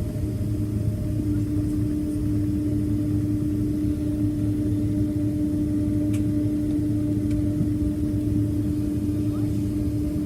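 Boeing 767 jet engines running steadily, heard from the passenger cabin: a low rumble with a constant hum that strengthens slightly about a second in.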